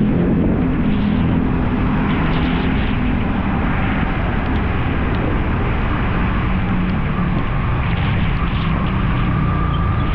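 Motorcycle engine running steadily while riding, under a heavy rush of wind noise on the microphone.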